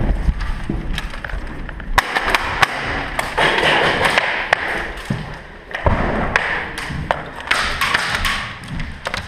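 Handling and movement noise from a player on the move: rustling gear, thumps and many sharp clicks and knocks close to the camera.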